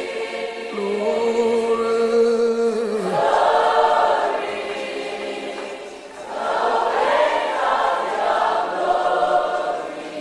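Choir singing a slow worship chorus in long held notes, swelling and fading in three waves.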